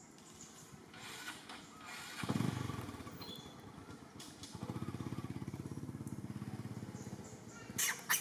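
A small engine, like a motorcycle's, starts up about two seconds in and then runs with a steady rapid pulse. A short, sharp high-pitched sound comes near the end.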